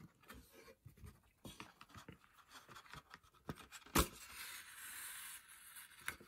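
Hand-sewing through card stock with a needle and thread: small scratches and clicks, one sharp click about four seconds in, then a steady rasping hiss of thread drawn through the card for about two seconds.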